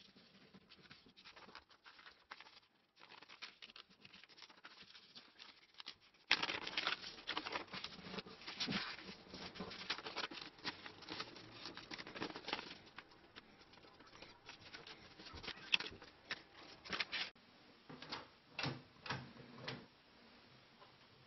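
A sheet of paper being folded and creased by hand into a paper airplane: crinkling and rustling with sharp crackles, fainter at first and louder from about six seconds in, with a few separate creasing strokes near the end.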